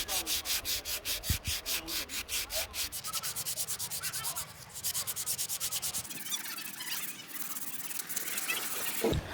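Rapid back-and-forth scraping strokes by hand, about four or five a second, turning into a more continuous rasp in the last few seconds, with a thump near the end.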